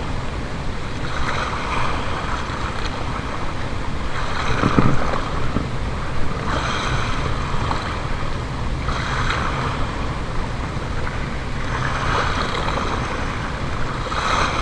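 Small sea waves washing in against a rocky shoreline, a rush that swells up every two to three seconds, with wind buffeting the microphone underneath.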